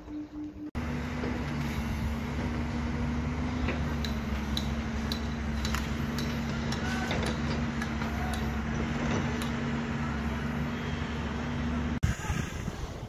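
A steady machinery drone with a constant low hum, with scattered light metallic clicks and clinks from steel stirrups being fitted onto a column rebar cage. The sound starts sharply just under a second in and changes abruptly near the end.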